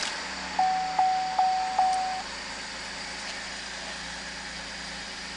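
Holden VF Commodore's 3.6-litre LFX V6 idling steadily just after starting, heard from inside the cabin. A single-pitched warning chime sounds four times in the first two seconds and then stops.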